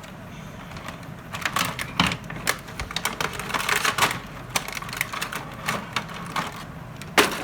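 Toy packaging being handled and pulled apart during an unboxing: a rapid, irregular run of crackles and clicks, densest through the middle, with a louder snap near the end.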